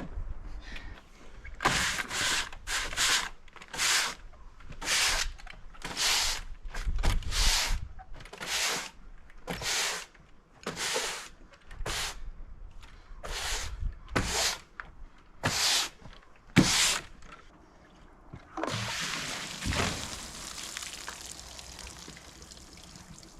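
Water sprayed onto a freshly sawn elm slab to bring out its colour and grain: a string of short hissing sprays, about one a second, then a longer continuous hiss near the end.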